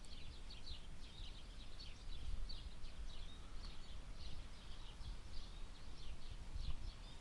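Small birds chirping over and over in the background, short quick high notes, over a low steady rumble.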